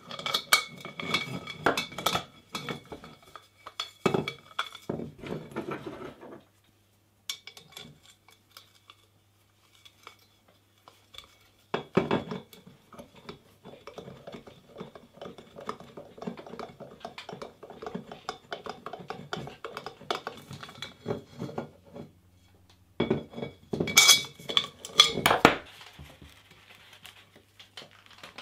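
Small metal hardware clinking and rattling on a square metal tube as bolts, washers and nuts are fitted and tightened with a nut driver and spanner. Clinks come in bursts, loudest a few seconds before the end.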